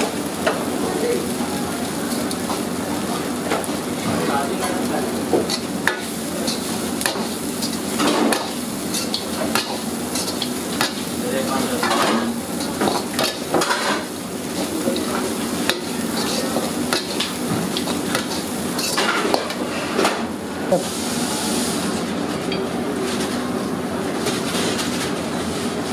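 A steel ladle stirring and scraping poha (flattened rice) around a large steel kadai, with light sizzling and repeated clinks of the ladle on the pan, over a steady hum.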